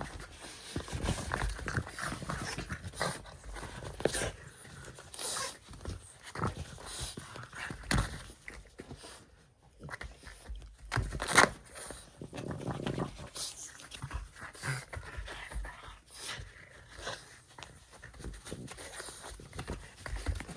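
French bulldogs tugging and wrestling with a plush tug toy: irregular scuffling, dog sounds and knocks. A sharp knock about eleven seconds in is the loudest moment.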